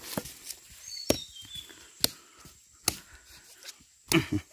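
Sharp knocks and snaps among dry bamboo leaf litter, about one a second, with the loudest a double knock near the end. A small bird chirps briefly about a second in.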